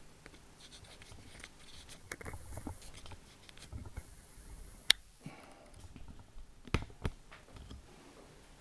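Faint handling noise from a handheld camera in a small room: light rustles, a sharp click about five seconds in and two smaller clicks around seven seconds.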